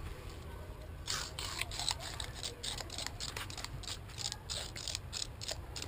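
A drinking straw and a cat's paws scraping and flicking over artificial grass: quick, irregular scratchy rustles, several a second, beginning about a second in.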